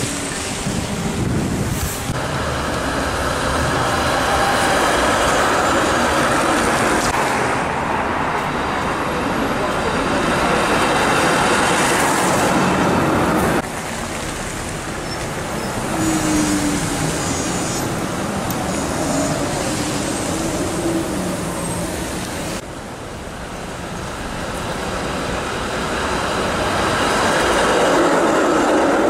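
City street traffic: cars and Toronto Transit Commission CLRV streetcars rolling past on their rails. It is loudest near the end as a streetcar passes close by. The sound changes abruptly a few times.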